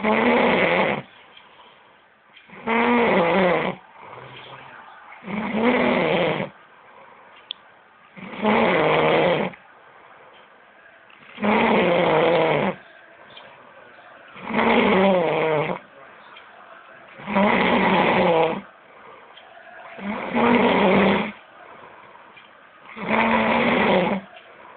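Loud snoring, a regular rhythm of about one snore every three seconds, each lasting about a second.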